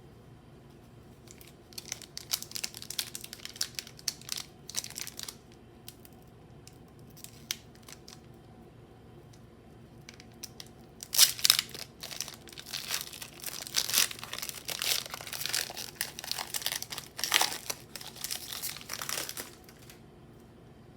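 Foil booster-pack wrapper being crinkled and torn open by hand. There is a short spell of crinkling early on, then a longer, louder stretch of tearing and crinkling from about eleven seconds in.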